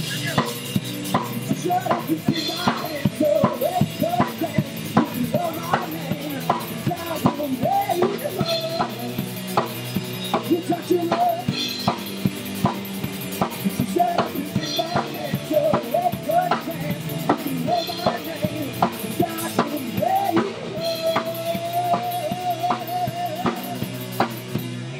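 Live rock band playing: a drum kit keeps a steady beat under electric guitar and bass guitar.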